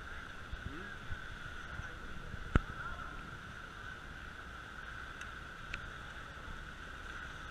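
Speedboat sitting slow by the rocks: a steady low rumble under a steady high-pitched buzz, with one sharp knock about two and a half seconds in.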